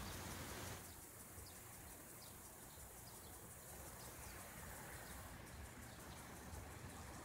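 Faint outdoor ambience: a steady low rumble and hiss, with a few faint, short bird chirps in the first few seconds.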